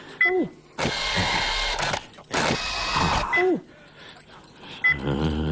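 Supermarket checkout barcode scanner beeping three times, each a short high beep: near the start, about three seconds in and near the end. Between the beeps come two stretches of even noise about a second long each.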